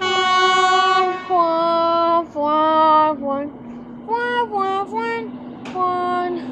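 A high voice singing a tune of held notes that step downward, then rise and fall again, over a steady low hum.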